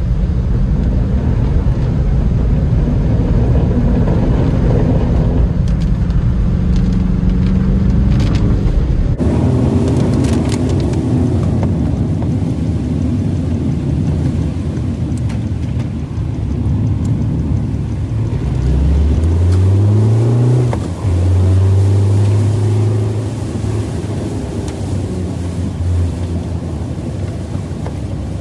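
Car engine and road noise while driving, the engine note rising as the car accelerates about two-thirds of the way through, dipping briefly, then holding steady at a higher pitch.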